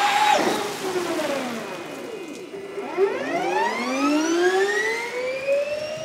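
Gen2 Formula E car's electric motor and gearbox whining. The whine falls sharply in pitch in the first second or so, then from about three seconds in rises steadily as the car accelerates.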